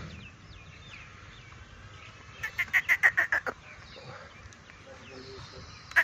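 A chicken clucking: a quick run of about eight short, sharp clucks near the middle, with another run starting at the very end. Faint small-bird chirps come in the first second or so.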